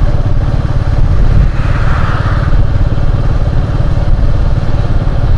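Motorcycle running steadily while riding along a road, heard from on board: a steady low engine rumble.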